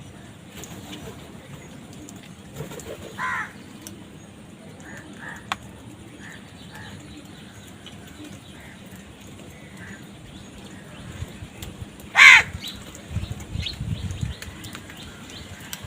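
Crows cawing: a single caw about three seconds in and a much louder caw about twelve seconds in, with faint short bird chirps between.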